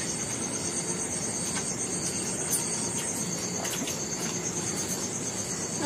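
Crickets chirping in a steady, high-pitched pulsing trill, with a few faint clicks over it.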